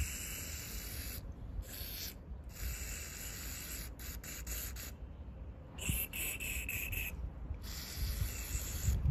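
Aerosol contact cleaner sprayed through a thin straw onto a motorcycle instrument cluster's circuit board, in about six short hissing bursts with brief pauses, and a few clicks about four seconds in. It is cleaning the dirty contact of a button that has stopped working.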